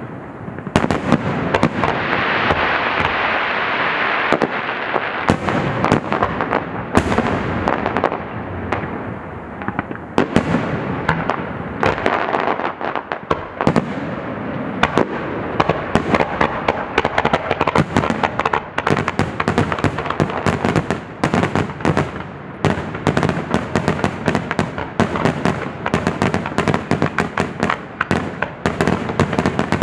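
Aerial fireworks display going off in a rapid, unbroken barrage: many loud bangs a second mixed with crackling.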